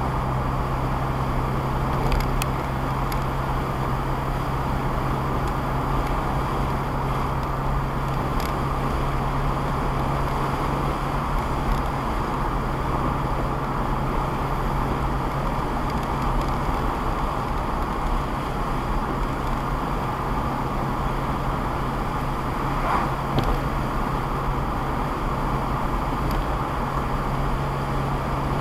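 Ford Fiesta ST under way, its engine drone steady over constant road and tyre noise; the drone eases for a stretch in the middle. A few faint sharp clicks come through, about 2, 8 and 23 seconds in.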